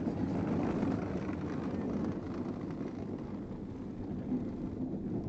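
Hard wheels of an unpowered downhill gravity kart rumbling over an asphalt track as it rolls down the slope, a steady rolling noise that eases slightly after about two seconds.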